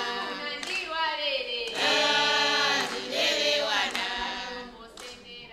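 A group of voices singing in phrases of about a second each, fading out over the last second or so.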